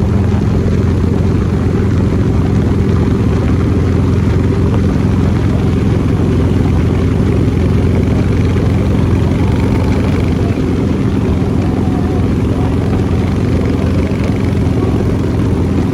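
Steady engine drone of a vehicle underway, holding one constant pitch.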